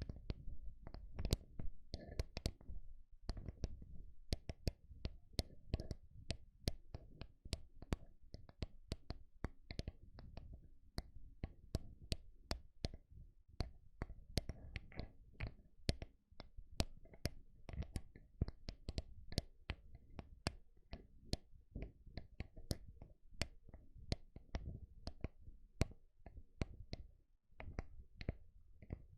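Slow ASMR microphone tapping: fingertips tapping on a microphone in a steady run of soft clicks with a low thud to each, about two or three taps a second.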